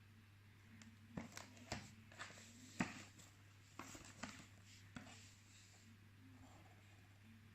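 Hands handling a perfume box and its packaging: a run of small clicks and rustles over about four seconds, over a steady low hum.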